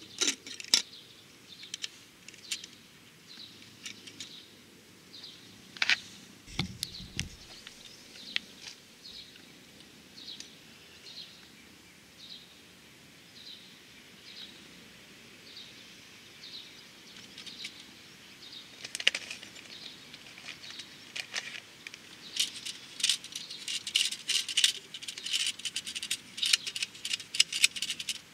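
Small clicks and rattles of a Honda Super Cub headlight unit and its halogen bulb being handled during a bulb swap, growing dense in the last third, with a dull bump around a quarter of the way in. A bird gives a short high chirp over and over, about every two-thirds of a second, through the first half.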